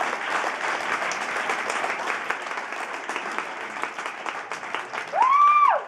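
Audience applauding steadily. Near the end, one person's loud drawn-out call rises and then falls in pitch over the clapping.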